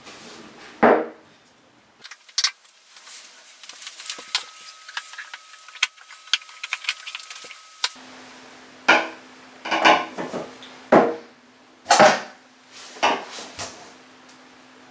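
Vinyl plank flooring being fitted: light scraping and clicking as a plank is handled, then a run of sharp knocks about once a second as planks are knocked into place.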